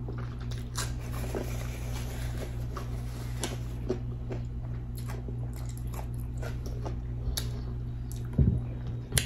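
Close-miked chewing and wet mouth smacks of a person eating saucy seafood boil, small clicks scattered through it over a steady low hum. A soft low thump comes near the end.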